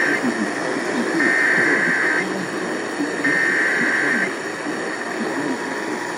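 NOAA Weather Radio SAME alert header: screeching digital data bursts about a second long, repeating every two seconds over radio hiss. This is the coded start of a new warning. Near the end the weather radio's steady alert tone begins.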